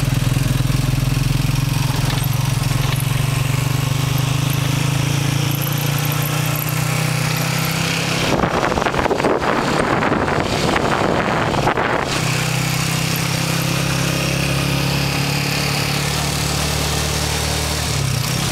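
Motorcycle engine of a Philippine tricycle (motorcycle with sidecar) running steadily under way. For about four seconds midway, a rough noise covers the engine and its steady hum drops out.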